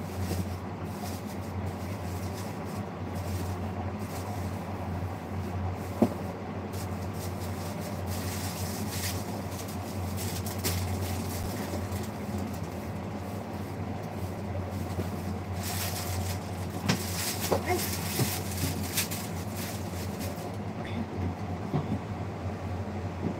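A steady low hum with a constant noisy background. Scattered clicks and clinks run over it, including one sharp click, and grow busier with rattling past the middle.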